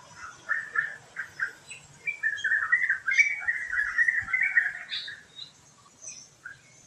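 Bird calling: a handful of short separate notes in the first second and a half, then about three seconds of fast, continuous chattering, the loudest part. Fainter, higher chirps from other birds sound behind it.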